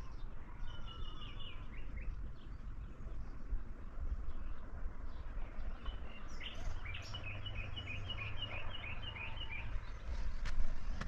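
Songbirds singing: a short run of repeated chirps about a second in, and a longer phrase of about ten quick notes about six seconds in. Both sit over a steady low rumble.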